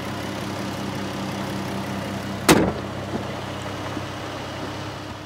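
2014 Jeep Cherokee Trailhawk's engine idling steadily, with one loud slam about two and a half seconds in.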